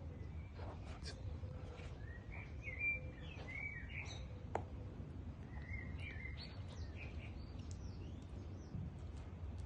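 Short bird chirps in quick curved phrases over a steady low background rumble, with a few sharp clicks in between.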